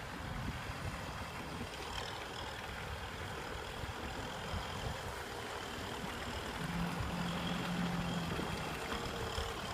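Kubota M6040 SU tractor's diesel engine running, with a low rumble and wind on the microphone; a steadier hum of the engine comes through for about two seconds near the end.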